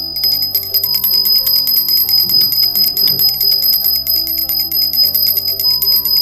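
Small brass hand bell rung rapidly and steadily, its clapper striking many times a second and sustaining a high, bright ring, as a bell rung for a puja food offering (bhog). Soft background music plays underneath.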